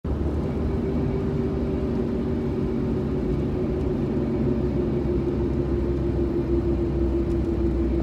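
Steady engine and road rumble heard inside the cabin of a moving van, with a constant low hum over it.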